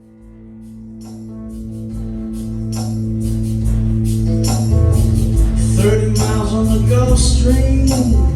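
A band's song intro fading in from silence, with a held low bass note under a tambourine keeping time. It swells to full level about four seconds in.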